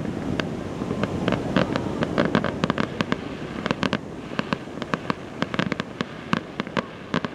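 Aerial fireworks going off: many sharp bangs and crackles in quick, irregular succession over a steady low rumble.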